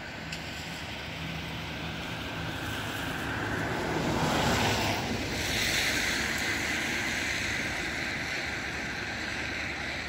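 Wind rushing over the microphone, swelling to a gust about four to five seconds in, then easing into a steady hiss.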